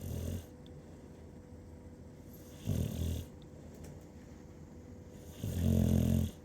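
Snoring: three snores about three seconds apart, each lasting under a second, low-pitched and growing louder, the last the loudest.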